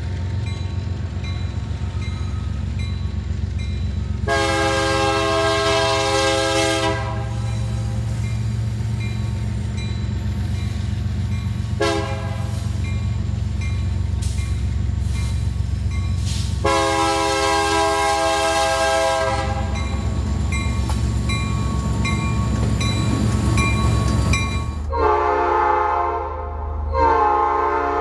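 Union Pacific diesel freight locomotive sounding its multi-chime air horn over the steady rumble of its engine: a long blast, a short one and a long one, the end of the warning signal for a road grade crossing. Near the end a different diesel locomotive's horn gives several short toots.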